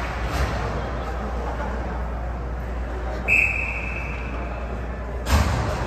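A referee's whistle blown once: a single high tone lasting about a second. Near the end comes a sharp knock, over the steady hum and murmur of the ice rink.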